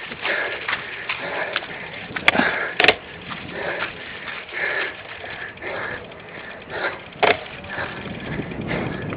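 Cyclocross bike ridden over rough ground: tyre noise and frame rattle with irregular knocks, and a few sharp clacks from bumps, the loudest about a third of the way in.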